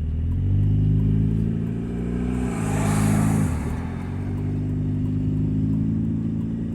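2000 Nissan Altima's 2.4-litre four-cylinder engine pulling away with a loud exhaust note from a leaking exhaust. Its pitch rises and then drops twice, and a brief rushing hiss comes about three seconds in.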